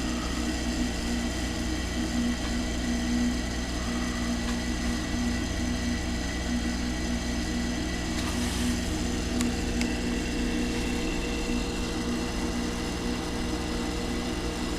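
Steady low electrical or machine hum with a faint pulsing buzz and several thin steady tones above it, unchanging throughout.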